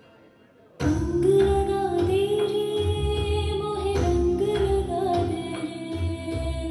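Dance music with a woman singing, cutting in suddenly about a second in after a brief lull.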